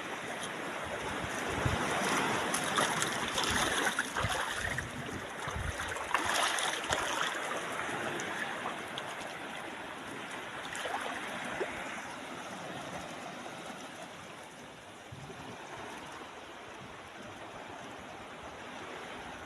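Water rushing, swelling over the first several seconds and then easing off, with wind buffeting the microphone.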